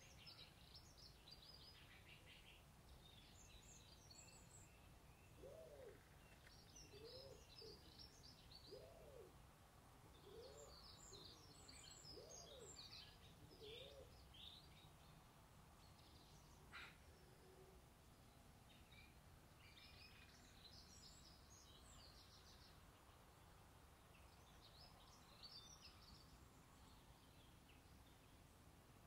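Faint chirping of small birds in scattered bursts. A run of six short, low hoots about a second and a half apart sits in the first half, and there is a single sharp click a little past halfway.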